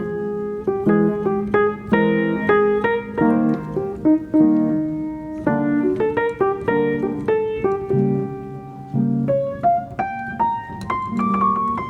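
Background music: a piano playing a melody of quickly struck notes over chords.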